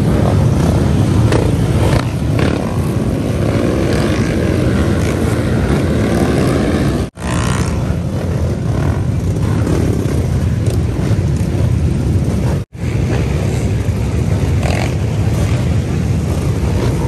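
Many dirt-bike engines running and revving together in a crowd of riders, with voices mixed in. The sound breaks off for an instant twice.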